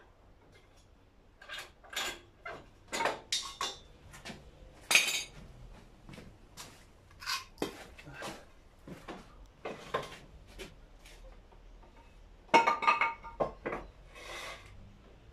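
Irregular metallic clinks and knocks of steel parts being handled on a steel stand, with the loudest knock about five seconds in and a quick cluster of clanks near the end.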